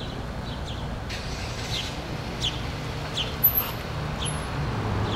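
Outdoor background: a steady low rumble with short, falling bird chirps repeating every half second or so.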